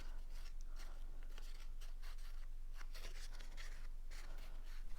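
Ink applicator rubbing along the edges of cut cardstock pieces, a run of short, dry, scratchy strokes over a steady low hum.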